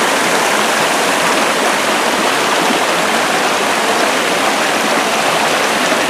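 Small waterfall pouring into a rocky pool: a steady, even rush of falling water.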